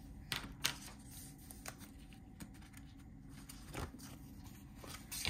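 Hands handling the paper pages of a ring-binder planner: soft paper rustling with scattered light clicks and taps.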